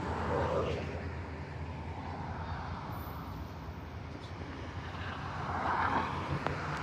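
Road traffic passing: a steady low engine hum with rushing noise that swells just after the start and again toward the end as vehicles go by.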